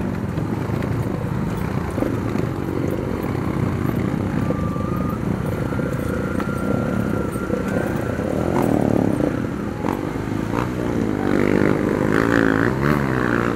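Kawasaki KLX dirt bike engine running at low speed over rough rocky ground, with a few knocks from the bike. Near the end the revs rise and fall and water splashes as the bike wades into a shallow river.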